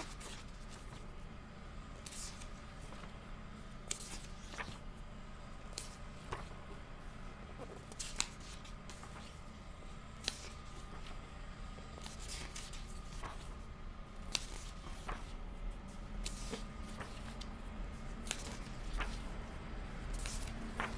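Pages of a thick book being turned one after another, each turn a short papery flick, about one a second, over a steady low hum.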